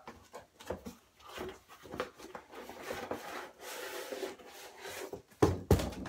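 Cardboard skateboard box being opened and a wooden skateboard deck slid out of it: scraping, rubbing and rustling, with a couple of sharp knocks near the end.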